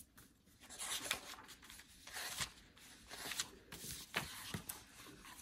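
Paper rustling and light handling as a picture book is opened and its pages are turned, in several short spells.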